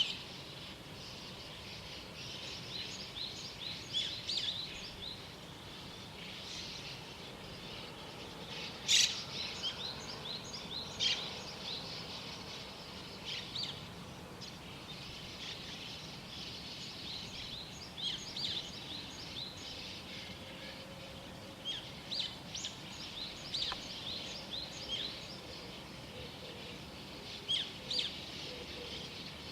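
Small songbirds chirping and twittering in the morning: many short, quick high notes from several birds over a steady background hiss. A louder call comes about nine seconds in and another about eleven seconds in.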